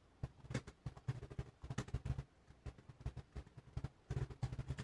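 Typing on a computer keyboard: a fast, uneven run of keystroke clicks.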